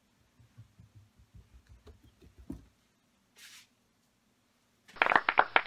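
Footsteps on a floor as a man walks in: a run of soft, low thuds over the first couple of seconds. Near the end comes a brief, loud burst of rapid pulses.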